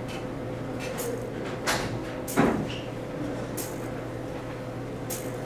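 Small hobby servos driving the acrylic arms of a robotic shade model, clicking and clattering as the arms swing, with two louder knocks about two seconds in, over a steady hum.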